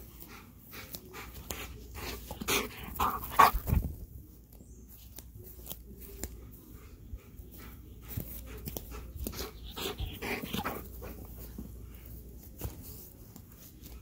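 A dog panting and breathing hard after running, with scattered clicks and rustles, and louder bursts about a third of the way in and again past the middle.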